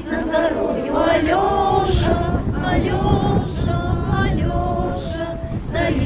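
Several women singing a song together to acoustic guitar accompaniment, the sung lines held and sliding in pitch.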